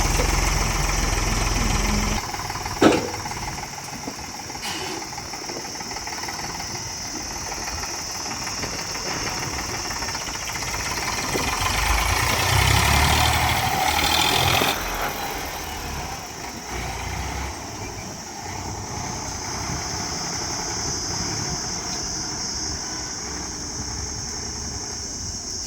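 A heavy vehicle's engine running steadily, with a sharp knock about three seconds in and a louder swell between roughly twelve and fifteen seconds.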